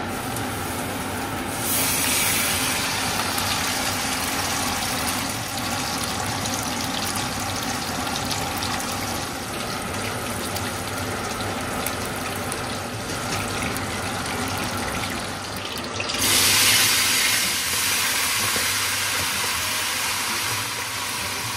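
Sole fish deep-frying in hot oil in a wok: a continuous loud sizzle. It surges louder about two seconds in and again near the end, as food goes into the oil.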